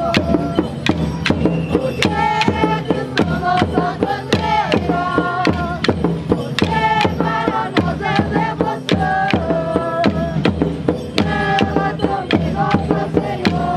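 Moçambique folk group singing a devotional song, the voices carrying a melody over a steady beat of sharp percussive strikes, about two to three a second.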